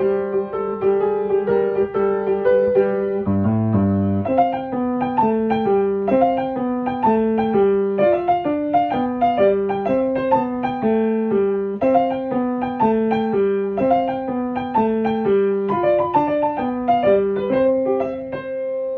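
Background piano music: a flowing, evenly paced pattern of single notes over changing bass notes. It stops abruptly at the end.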